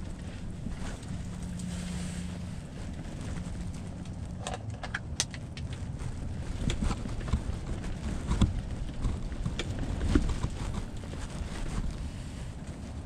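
Strong wind buffeting the microphone, a steady low rumble, with a scattering of sharp clicks and knocks through the middle.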